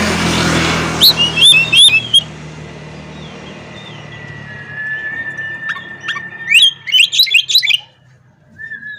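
Oriental magpie-robin singing: a few sharp sliding whistles, a long steady whistled note, then a quick run of loud notes. A passing vehicle fades out in the first second.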